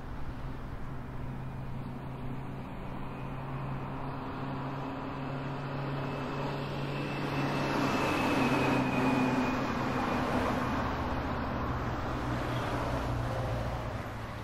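A passing vehicle: a steady low hum under a rushing noise that swells to its loudest about halfway through and then eases off, with a faint high whine sliding slightly lower.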